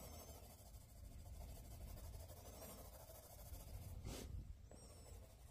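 Faint pencil strokes scratching on drawing paper, with one brief tap about four seconds in.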